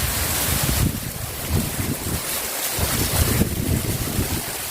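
Heavy rain hissing steadily, with gusts of wind buffeting the microphone in low rumbles.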